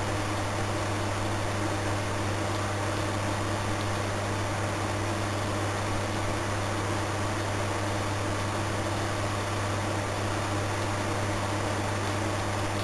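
Electric fans running with a steady hum and an even rush of air.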